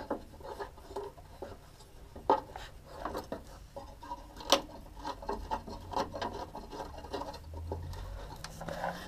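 A fuel filter being worked loose by hand from its mounting bracket under a minivan: rubbing and scraping with scattered small clicks, and one sharper knock about four and a half seconds in, over a faint low hum.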